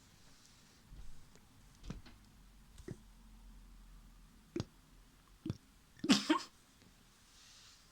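Goopy slime being squeezed and stretched, giving a handful of short wet squelches and pops, the loudest a crackling burst about six seconds in.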